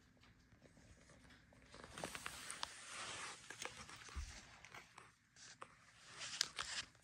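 Faint rustling and scattered small clicks of handling and clothing noise as the phone is lowered toward the floor. It swells about two seconds in and again near the end.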